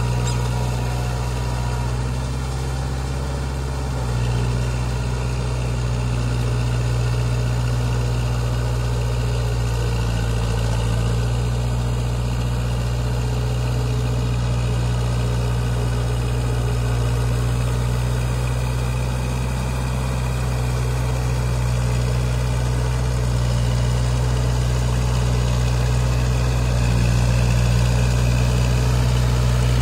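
Kubota MU4501 tractor's four-cylinder diesel engine running steadily under load while it pulls a rotavator through a flooded paddy, puddling the soil. It grows a little louder near the end as the tractor comes closer.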